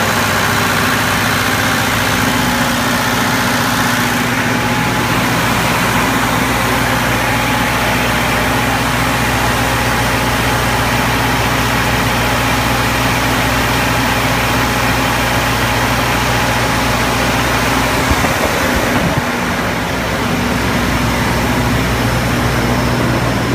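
Engine of an AC 2030DE aircraft ground air-conditioning cart running steadily, a loud, even engine hum with the cart's machinery noise over it.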